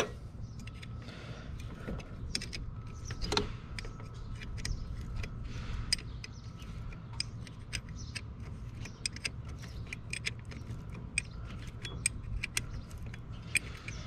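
Light metallic clicks and clinks of a 7/16 open-end wrench working the bolt of a battery cable terminal, scattered irregularly. The terminal is being refitted after a loose, poorly made connection left the van unable to start.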